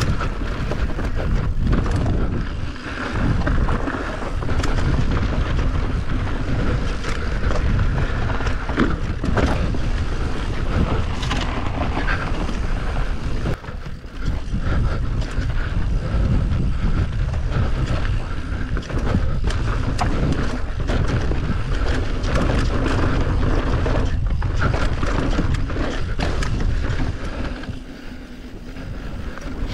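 Enduro motorcycle engine running hard and easing off along a trail, with wind buffeting the microphone. The engine note drops briefly a few times, most clearly near the end.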